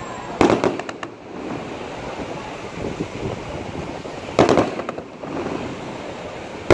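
Aerial fireworks shells bursting: two loud booms about four seconds apart, each followed by a few smaller cracks, with another boom starting right at the end.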